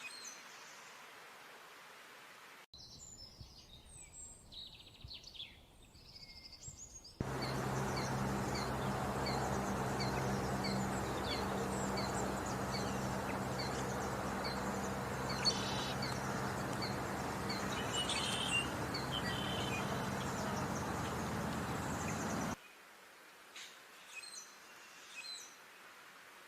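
Small birds chirping and singing in short calls. For about fifteen seconds in the middle, a louder steady rushing noise with a low hum cuts in and cuts out abruptly, with a single high chirp repeating evenly, about one and a half times a second, over it.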